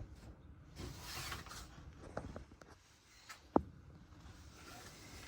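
Hunter Coastal Breeze Plus ceiling fan running quietly on low speed, just after being switched on, heard as a faint steady background with soft rustling and a few light clicks. The sharpest click comes about three and a half seconds in.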